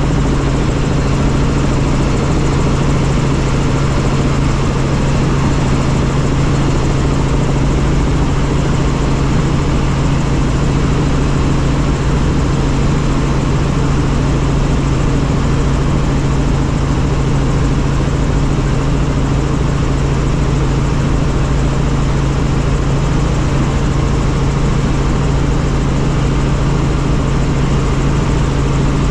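Helicopter in flight: steady rotor and engine noise with a constant low hum that holds the same pitch throughout.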